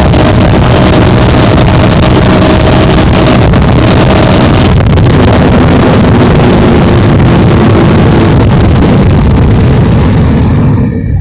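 Heavy wind buffeting the microphone of a moving bike, loud and rushing, with a low steady hum underneath; it drops off suddenly at the very end as the ride slows.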